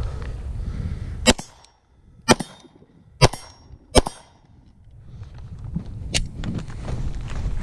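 Four gunshots from a firearm, fired about a second apart, then a fainter sharp crack a couple of seconds later. Wind rumbles on the microphone before and after the shots.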